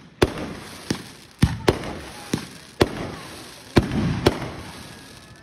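Fireworks going off: about eight sharp bangs at uneven intervals, each followed by a fading echo.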